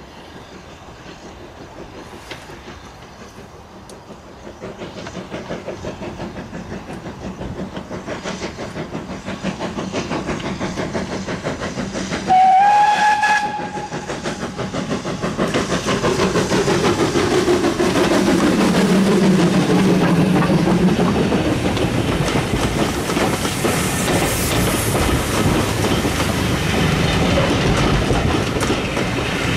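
BR Standard Class 2 2-6-0 steam locomotive approaching under steam, its exhaust beat growing steadily louder. About halfway through it gives one short whistle blast of about a second. It then runs close past, followed by its coaches rolling by with a clickety-clack of wheels over the rail joints.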